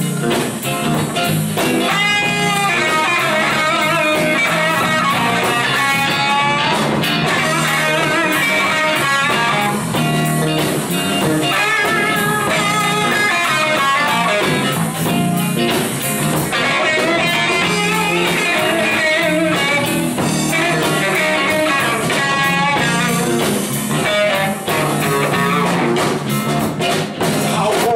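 Live electric blues guitar solo on a Les Paul-style electric guitar, with many bent, gliding notes, over a band's drums.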